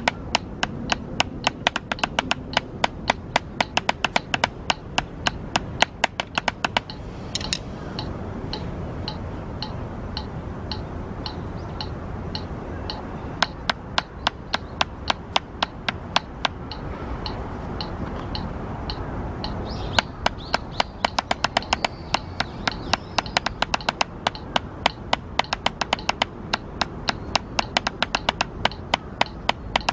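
Pair of drumsticks striking a drum practice pad in a steady, even stream of strokes. The strokes turn softer from about seven seconds in and come back loud at about twenty seconds.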